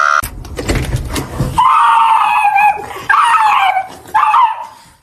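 A dog gives three drawn-out, wavering cries, the first about a second long and the others shorter. Low rumbling noise comes before them in the first second and a half.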